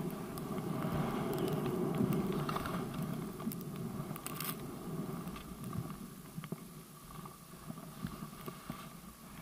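Skis sliding through deep powder snow, a steady low rushing noise that fades over the second half as the skier slows, with a few faint clicks.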